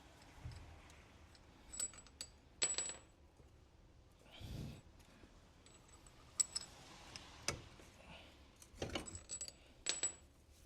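Irregular metal-on-metal clinks and knocks, several ringing briefly, as the drive axle is worked loose from the wheel hub and bearing.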